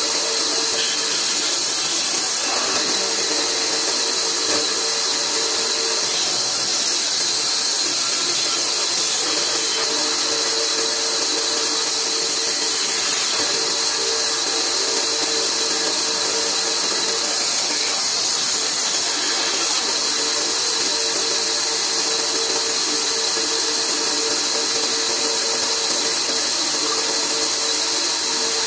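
Large band saw running without cutting, a steady hum with a constant tone and a strong hiss.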